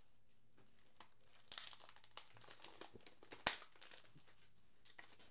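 Plastic shrink-wrap crinkling faintly as it is peeled off a CD and Blu-ray case, with one sharp click about three and a half seconds in.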